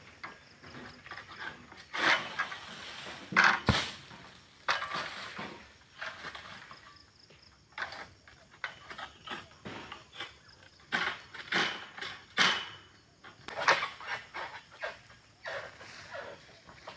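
Long harvesting pole cutting at the fronds in an oil palm crown: irregular rasping strokes and rustling of palm fronds, with a sharp click about four seconds in. The strokes come in bunches, loudest around two to four seconds in and again around eleven to fourteen seconds.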